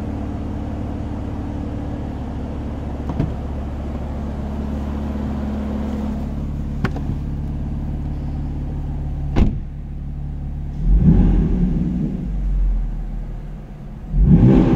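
BMW M4's twin-turbocharged inline-six idling steadily through its M Performance exhaust, heard from inside the cabin, with a door shutting about nine and a half seconds in. The engine is then blipped twice, then revved harder near the end.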